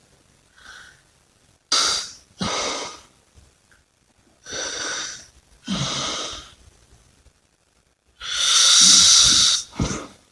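A person breathing heavily and noisily: about six loud, airy breaths, mostly in pairs, with the longest and loudest one near the end.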